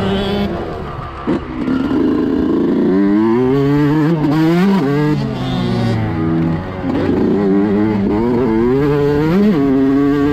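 Yamaha YZ125 single-cylinder two-stroke engine heard on board while riding, revving hard: its pitch climbs several times and drops back sharply, over wind noise. A single thump about a second in.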